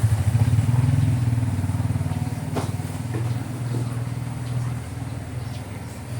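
Steady low engine-like drone with a fast, even pulse, easing off slightly in the second half, with a faint click or two.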